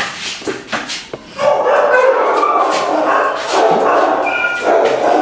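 Frightened, agitated dog crying out in distress: after a few short knocks, two long loud cries, the first starting about a second and a half in and the second just after a brief break near the middle.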